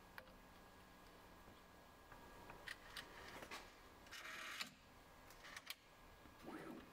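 Faint handling of a silicone hotend sock on a Bambu Lab H2D 3D printer as it is pulled off: a few soft clicks and a brief rubbing hiss about four seconds in.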